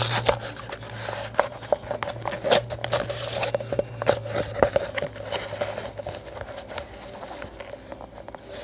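Paper padded cushion mailer being handled and pulled open: crinkling and rustling of the envelope with a rapid, irregular scatter of small crackles, busiest in the first half and thinning out toward the end.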